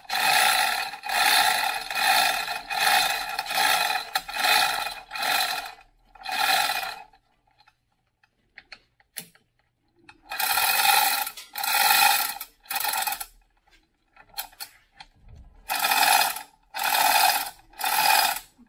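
Manual chain hoist worked by hand-chain pulls, each pull a short burst of ratchet clicking and chain rattle. A run of about eight pulls, a pause of a few seconds, then two shorter runs of three.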